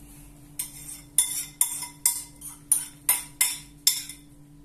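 Repeated sharp clinks, about three a second, of a ceramic bowl being tapped against a steel stockpot to knock out chopped herbs. The tapping stops near the end.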